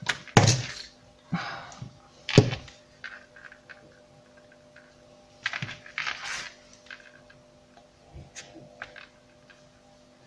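Clear plastic shaker dome and card frame handled on a cutting mat: a few sharp clicks and knocks in the first couple of seconds, then rubbing as a cloth wipes glue off the plastic.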